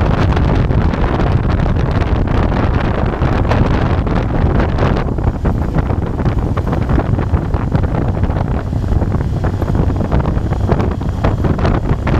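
Wind buffeting the microphone over the Moto Guzzi Bellagio's V-twin engine running at cruising speed. The high wind hiss eases about five seconds in.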